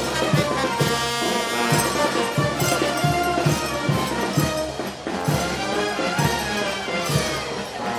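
Brass band playing Negritos de Huánuco dance music: sustained horn notes over a steady drum beat of about two strokes a second.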